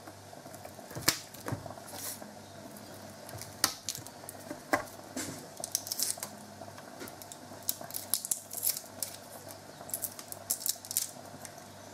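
A small kitchen knife nicking and scraping the papery skins off garlic cloves, with scattered light clicks and taps of the blade and cloves on a wooden cutting board, over a faint steady hum.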